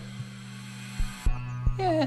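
A steady low hum with a few dull knocks at uneven spacing, and a faint hiss that cuts off about halfway through.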